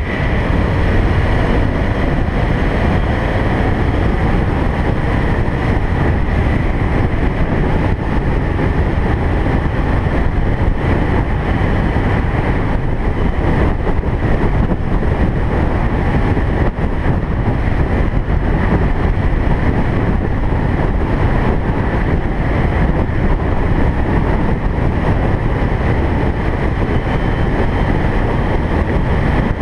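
Steady road and engine noise of a car being driven, with some wind noise, holding an even level throughout.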